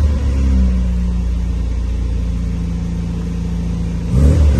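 1978 MGB's 1.8-litre B-series four-cylinder engine ticking over steadily just after a cold start, with the choke still pulled out, running nice and quietly.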